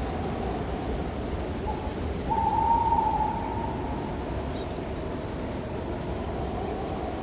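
Steady low wind-like ambience, with an owl hooting about two seconds in: a short note, then a longer, louder one lasting about a second.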